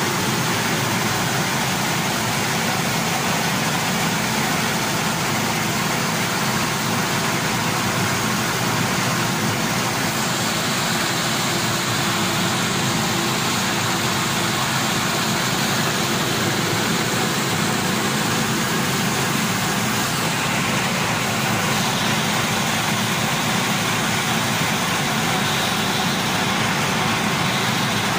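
Rice mill machinery running steadily, hulling and milling palay into rice: an even, loud mechanical din.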